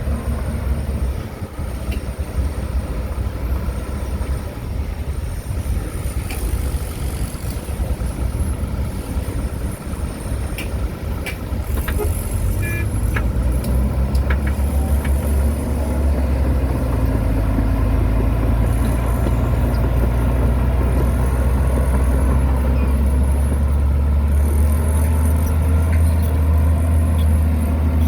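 Heavy diesel earthmoving machinery running with a continuous low engine drone, which grows louder and steadier about halfway through.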